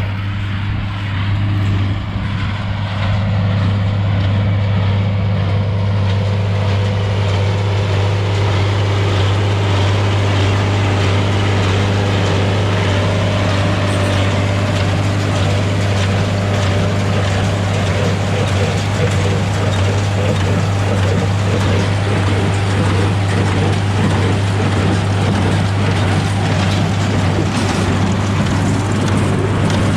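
Tractor engine running steadily with a strong low hum, getting louder and busier a couple of seconds in.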